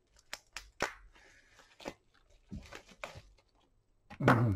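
Hands handling laptop parts and plastic: a string of small clicks and crackles, then a louder rustling bump about four seconds in.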